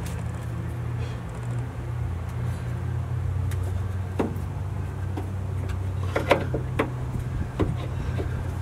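Scattered light clicks and knocks from hands and tools working on the underside of a car: one about four seconds in, then several more close together near the end, over a steady low hum.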